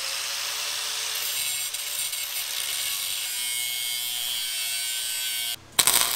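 Corded angle grinder running steadily against the steel tube of a motorcycle subframe, its whine rising slightly as it spins up at the start. It stops abruptly near the end, and a welding arc starts crackling in its place.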